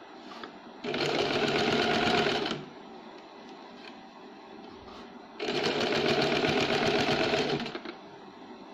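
Small white electric sewing machine running in two bursts of fast, even needle strokes, about two seconds each with a pause of about three seconds between, as it topstitches the folded neck edge of a blouse.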